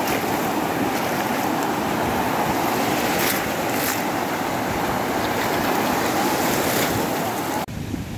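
Surf washing in at the shoreline, a loud steady rush of breaking waves with wind buffeting the microphone. Near the end it cuts off abruptly to a much quieter background.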